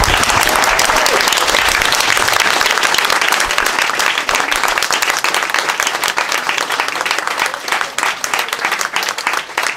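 Audience applauding: dense clapping that thins to scattered claps near the end.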